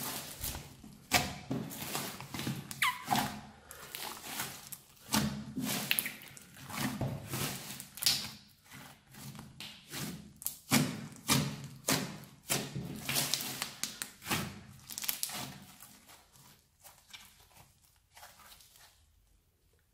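Slime being pressed and kneaded by hand, giving a dense run of irregular wet clicks, pops and squelches as fingers push into it and air pockets burst. The pops thin out and grow quieter near the end as the slime is pulled and stretched.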